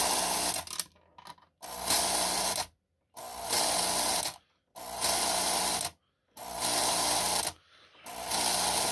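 Lionel postwar Bosco operating milk car's mechanism buzzing in repeated bursts of about a second, six times with short gaps, as the uncoupling track controller is pressed and released. Each burst drives the milkman figure out of the door to push a milk can onto the platform.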